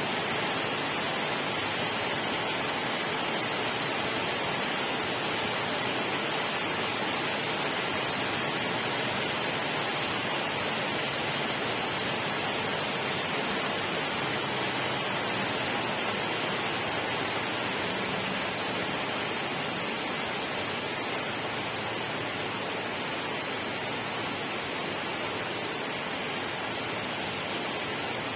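Steady rushing water: an even, unbroken hiss with no separate drops, splashes or other events.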